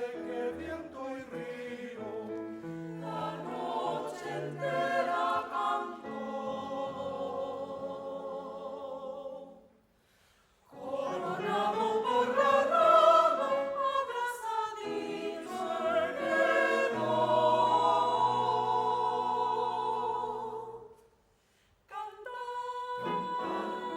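Choir singing, breaking off briefly twice: once about ten seconds in and again about twenty-one seconds in.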